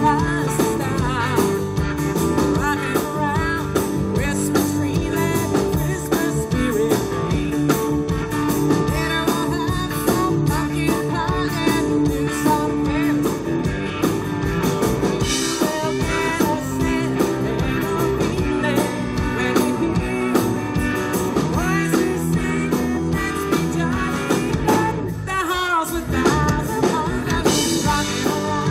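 Live band playing a song: strummed acoustic guitars, electric bass and drums, with a woman singing.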